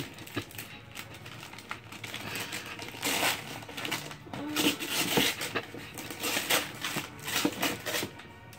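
Gift wrapping paper being torn and crinkled as a present is unwrapped, with tissue paper rustling, in quick irregular rips and rustles that get louder from about three seconds in.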